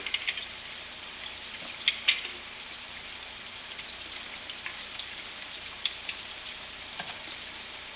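Steady hiss with a few light clicks and taps, two close together about two seconds in.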